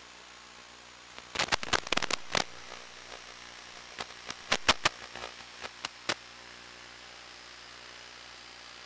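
Steady static hiss with a faint hum, broken by two clusters of sharp crackling clicks, about a second in and again around four to six seconds in. No motor is heard.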